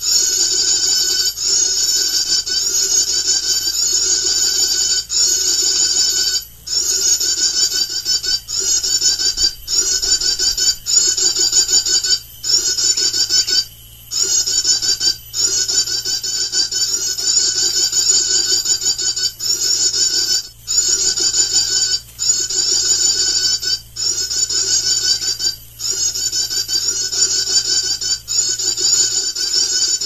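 Bird-trapping lure call played through a loudspeaker: a loud, high, dense chattering trill that repeats on and on. It breaks off in short gaps about every second and a half.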